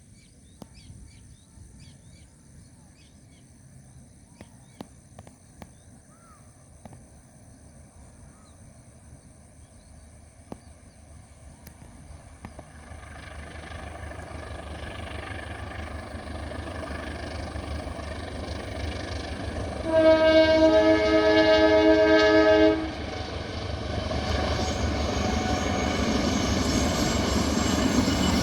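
Diesel locomotive of the KA Serayu passenger train approaching: quiet at first, then a rumble that grows steadily louder for about fifteen seconds. The locomotive's loud multi-tone horn sounds one steady blast of nearly three seconds, and the rumble of the arriving train keeps rising after it.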